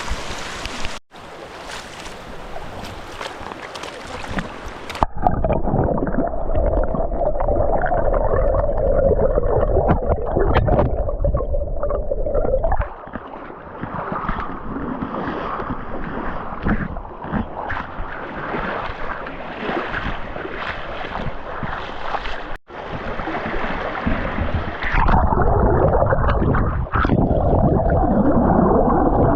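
Rushing water of a waterfall and stream, a loud continuous roar that is muffled and low for much of the time, with several abrupt changes in tone.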